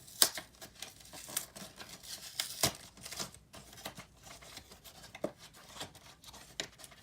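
A cardboard trading card hanger box being torn open and its packaging handled: scattered tearing and rustling, with a couple of sharp snaps.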